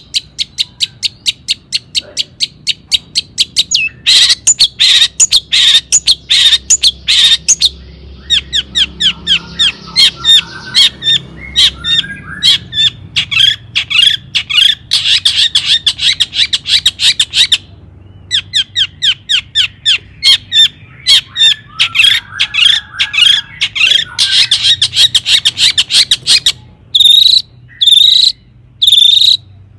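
Long-tailed shrike (cendet) singing loudly: a fast run of sharp, repeated notes, with a short break about two-thirds of the way through. Near the end it slows to separate notes about one a second.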